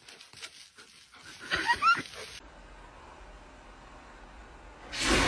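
A dog giving a few short rising cries about one and a half seconds in, over faint clicking. Near the end a loud, noisy rush begins.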